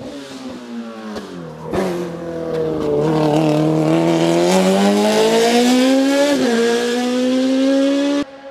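Race car engine at a hillclimb hairpin: the revs fall as it slows into the bend, then climb steadily and loudly as it accelerates out. There is one quick gear change about six and a half seconds in, then the revs rise again before the sound cuts off abruptly near the end.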